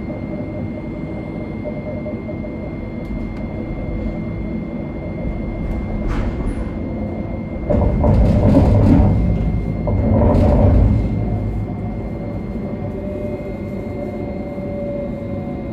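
Cabin noise of an A Class tram running along its track: a steady rumble with a few faint steady tones. It swells twice into louder rumbling about eight and ten seconds in.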